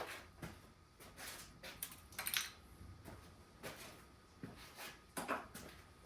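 Scattered small clicks, taps and rustles of parts and tools being handled, with a sharper click at the very start.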